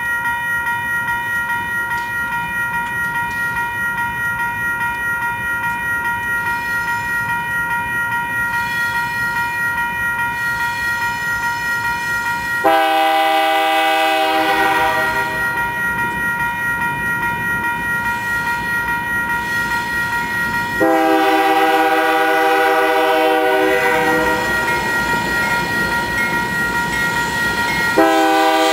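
Grade crossing bell ringing rapidly and steadily, while a diesel locomotive's air horn sounds a chord in long blasts: one about halfway through, a longer one about two-thirds through, and a third starting near the end.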